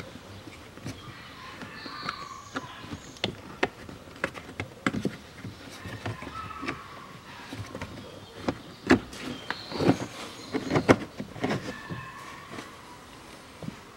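Felt-backed under-dash trim panel being worked loose and pulled out of the footwell by hand: scattered clicks and knocks of its plastic clips and edges, with rustling and a few short squeaks, busiest about two-thirds of the way through.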